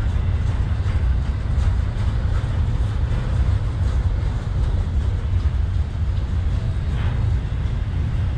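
Double-stack intermodal container cars rolling past on the track: a steady low rumble of steel wheels on rail.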